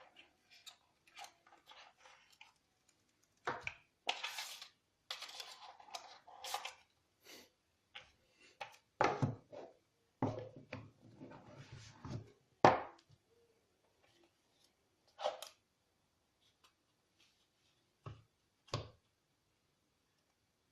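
Irregular handling noises of an unboxing: rustling and scraping of packaging with scattered clicks and knocks, the sharpest knock about twelve seconds in.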